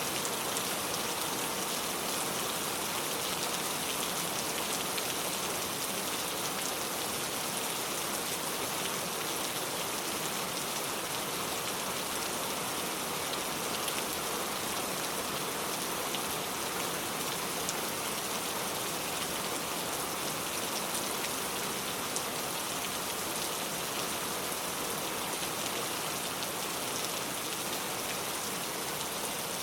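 Steady rain falling, an even hiss with many fine, close-spaced drop ticks on surfaces.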